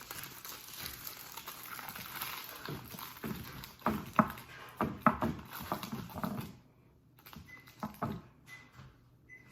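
A few seconds of knocks and clatters, then several short, high electronic beeps all at one pitch. The beeps come from an oven's control panel as its timer buttons are pressed.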